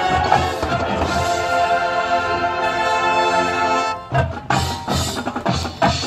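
Marching band playing its field show. The full band holds a sustained chord, which breaks off about four seconds in, and the drums and percussion then play a run of separate accented hits.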